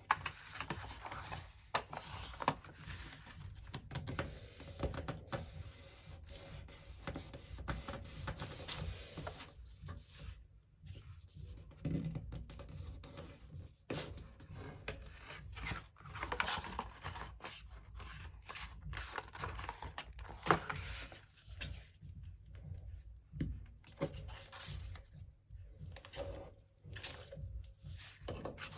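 Cardboard and paper being handled on a work surface: irregular rustling and scraping with light knocks and taps throughout.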